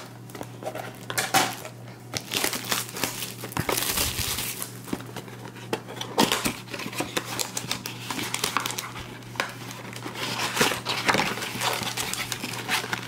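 Plastic wrapping crinkling and tearing as it is stripped off a cardboard trading-card blaster box, with irregular rustles and clicks of handling, then the box's cardboard flap pulled open.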